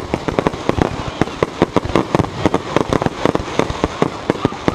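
Fireworks display: a dense, rapid barrage of mortar launches and aerial shell bursts, several sharp bangs a second with crackling between them.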